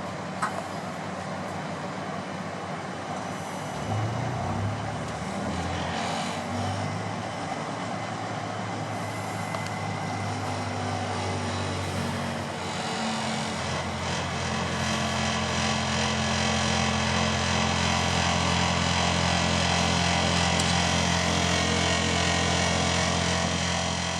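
Air-conditioner outdoor unit running with a steady rushing noise. A low hum comes in about four seconds in and settles into a steadier, louder hum from about halfway on, as the unit comes up to speed. The unit is making an abnormal noise, which the uploader ties to a bearing.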